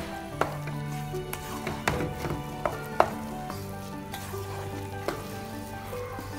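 A wooden spatula stirring rice in a nonstick pot, knocking and scraping against the pan about half a dozen times over a steady sizzle from the cooking rice.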